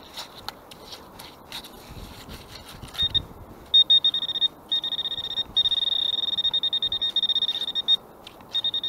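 Handheld metal-detecting pinpointer probe beeping with a high-pitched tone from about three seconds in, in quick pulsing runs that become nearly continuous in the middle: the probe is close to a metal target in the mud. Faint scraping and clicking of the probe in the wet gravel comes before the beeping.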